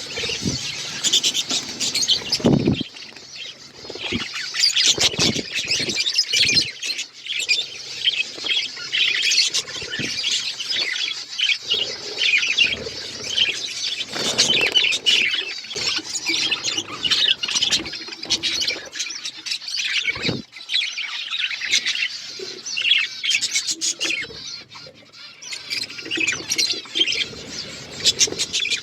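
A flock of budgerigars chirping and chattering continuously, with scattered clicks and knocks of birds pecking at seed and moving about.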